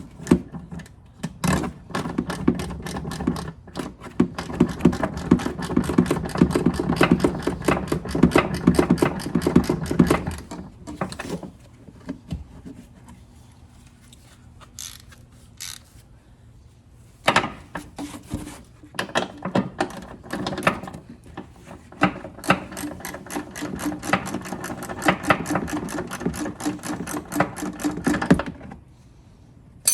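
Rapid mechanical ratcheting clicks with a steady hum, in two long spells with a quieter pause between, as a tool runs out the car's rear shock mounting bolts.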